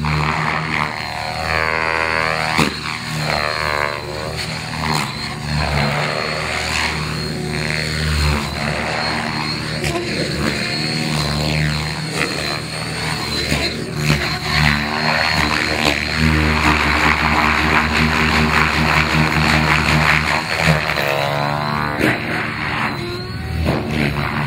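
Radio-controlled helicopter flying aerobatics: its rotor and motor run continuously, the sound shifting in tone and swelling as the helicopter moves about the sky.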